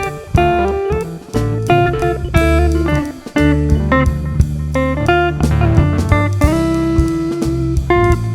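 Background music: a guitar playing single notes in a blues style over bass and drums.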